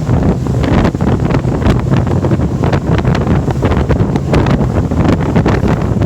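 Wind buffeting the microphone in irregular gusts over a power catamaran at speed. Its twin Mercury 200 V6 outboards are running hard, at around 4,500 to 5,000 RPM, and the hull is running through the water.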